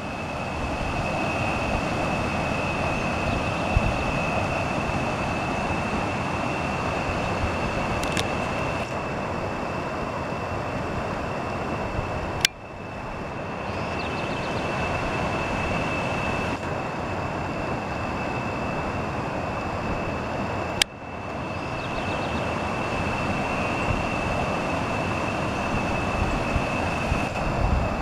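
River water rushing over rocky rapids and a small waterfall, a steady rush with a thin high-pitched whine running through it. Two brief clicks break it, where the recording cuts.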